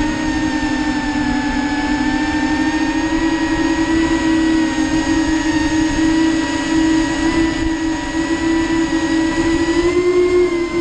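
DarwinFPV Cineape 35 cinewhoop drone's brushless motors and propellers whining in flight, a steady hum that shifts slightly in pitch with throttle and rises a little near the end, over rough low wind noise.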